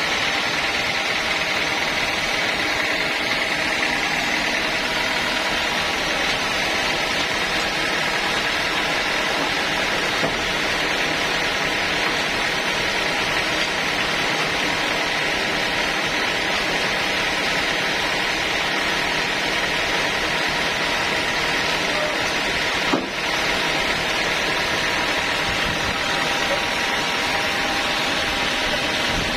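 Homemade engine-driven sawmill running steadily, with a constant high whine over the machine noise. There is a single brief click about three-quarters of the way through.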